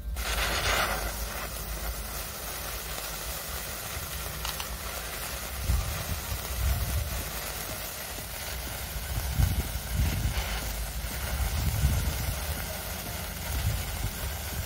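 A handheld sparkler catching light and burning with a steady fizzing hiss, louder for the first second or so as it flares up. Low rumbles come and go underneath.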